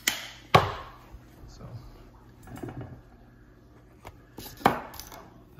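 A few sharp knocks and clatters of hard parts being handled on a wooden tabletop. The loudest comes about half a second in and another near the end, with softer handling noise between.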